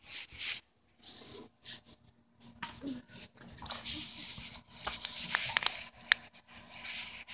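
Rustling and rubbing of a phone being handled close to its microphone, with a few short high squeaks about five to six seconds in.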